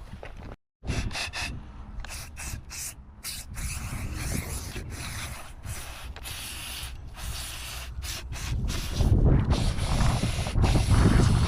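Rubbing and scrubbing sounds, greasy winch parts being cleaned by hand. A louder low rumble sets in about nine seconds in.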